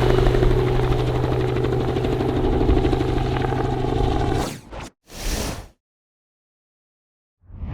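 Helicopter running steadily with a constant low pitch, cutting off suddenly about four and a half seconds in; two brief bursts of noise follow, then silence.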